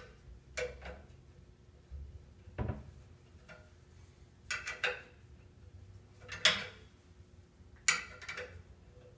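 Scattered metallic clinks and clanks of a steering tie rod assembly and hand tools being worked in a bench vise as the tie rod is broken loose for disassembly. There are several separate knocks, the loudest about six and a half seconds in.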